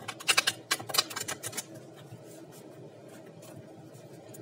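A deck of tarot cards being riffle-shuffled: a fast rattle of card edges snapping past each other for about a second and a half, then only faint room tone.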